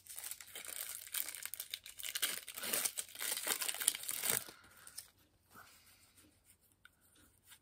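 Trading-card pack wrapper being torn and crinkled by hand, busy and continuous for about four and a half seconds, then dying down to faint rustling.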